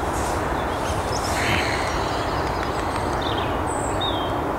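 Steady outdoor background noise with a few short, high bird chirps scattered through it.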